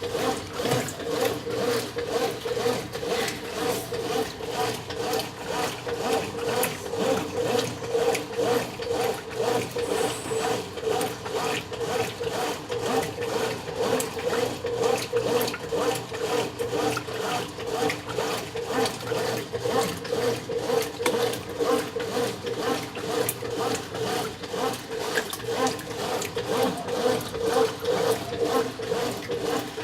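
Brastemp 9 kg top-loading washing machine agitating a load of clothes in water, a steady motor hum under a regular swishing back-and-forth rhythm of about one and a half strokes a second.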